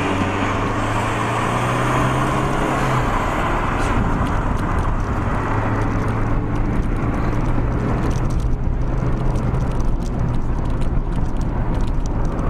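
A car accelerating hard at speed, with a steady engine note and heavy road and wind noise. The engine tone steps down about three seconds in, then holds as the speed keeps rising.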